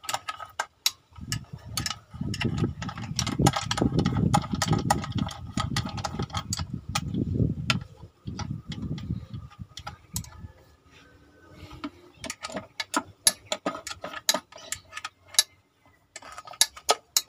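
Ratchet wrench clicking in irregular runs as bolts on a diesel engine are turned, with sharp metallic clicks and taps of the tool. A loud low noise covers the first half, from about one to eight seconds in.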